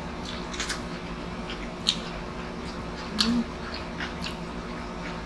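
Close-up mouth sounds of eating seafood: wet chewing, lip smacks and scattered sharp clicks of shell, over a steady low hum. A louder click comes about two seconds in, and a brief low pitched sound just after three seconds.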